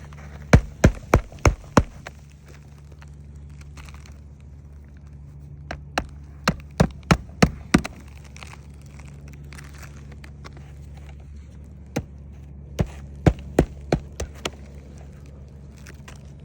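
Hammer driving roofing nails to fasten a replacement asphalt shingle: three runs of about six or seven sharp blows each, roughly three a second, over a steady low hum.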